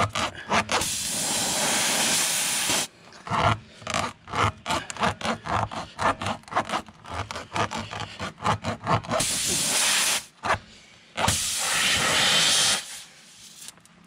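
Tire reamer (spiral rasp) being pushed and twisted in and out of a puncture in a car tire's tread, making rapid rasping scrapes several strokes a second. The scrapes are broken three times by a steady hiss of air escaping through the opened hole, and the sound dies down near the end.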